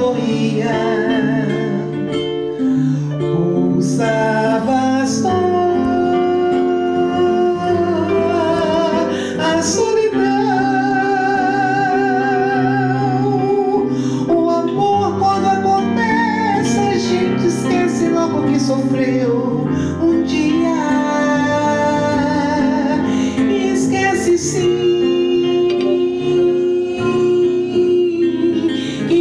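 Live female vocalist singing a slow melody with vibrato on her held notes, amplified through a microphone, over electric keyboard chords and acoustic guitar.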